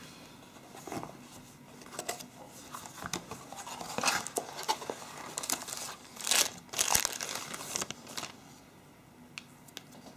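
Plastic wrapping crinkling and tearing, and a cardboard phone box being opened by hand, in irregular rustles and clicks. The rustling is loudest about four seconds in and again from about six to eight seconds, then dies down to light handling.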